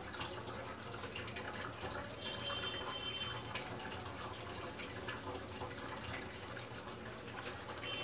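Steady background hiss with a low hum beneath it; a faint high tone comes and goes twice.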